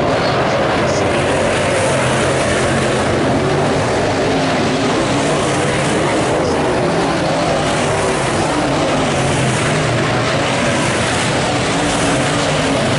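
Several late model sedan race cars' engines running on a dirt oval during a race, a loud, steady engine drone with no single car passing clearly.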